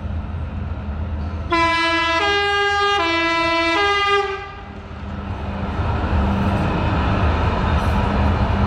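Two-tone horn of a BN articulated coastal tram sounding for about three seconds, switching back and forth between a lower and a higher note, four notes in all. Then the tram's running rumble on street track, building as it approaches and passes close.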